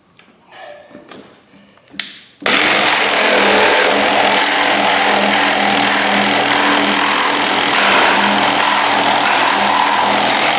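Ridgid Gen5x 18-volt cordless reciprocating saw, with a Diablo wood-with-nails blade, starts suddenly about two and a half seconds in and cuts steadily into a board full of nails. It makes a loud, harsh, continuous buzz with a steady hum beneath it. Before it starts there are a few light handling clicks.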